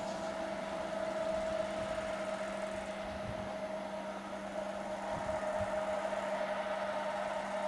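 Steady hum with a constant whine from a train drawing away into the distance.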